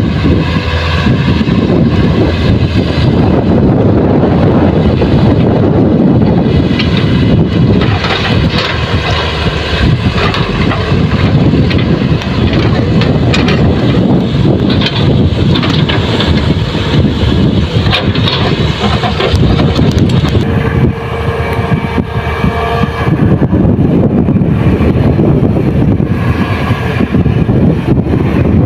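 Heavy diesel machinery running steadily as a Kobelco excavator and dump truck work loading soil, with wind buffeting the microphone. The noise eases briefly about three quarters of the way through.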